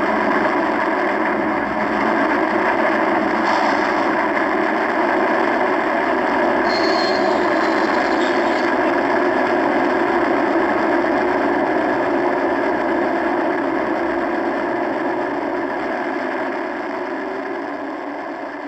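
Recorded GP38-2 diesel locomotive working in a yard, its engine running steadily. A short high squeal comes about seven seconds in, and the sound fades out over the last few seconds.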